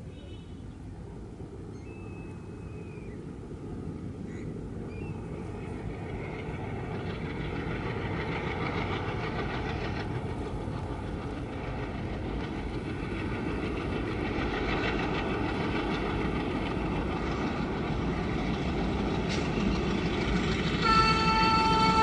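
Twin ALCO diesel locomotives chugging as they haul a freight train across a long bridge. The engine and wheel rumble grows steadily louder as the train approaches. Near the end the locomotive horn starts up, a loud blast of several tones at once.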